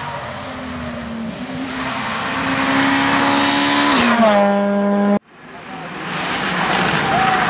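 Rally car engine at high revs approaching and passing close by, its note climbing as it nears and dropping in pitch as it goes past. The sound cuts off abruptly about five seconds in, and another rally car's engine swells up as it approaches.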